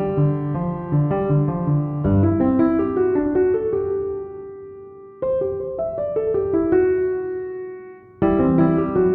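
Background piano music: gentle phrases of chords and melody notes, each starting with fresh notes that then ring and fade, with new phrases about two, five and eight seconds in.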